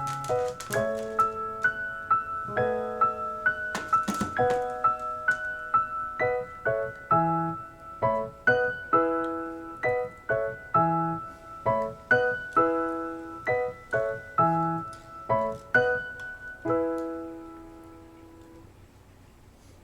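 Background piano music: a gentle melody of struck notes and chords, about two a second, that rings out and fades away near the end.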